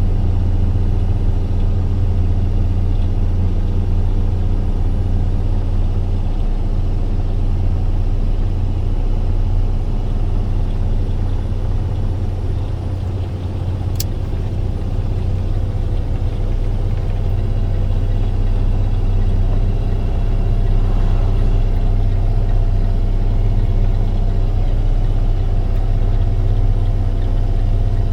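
Box truck engine running steadily while driving, a continuous low drone. There is a single sharp click about halfway through.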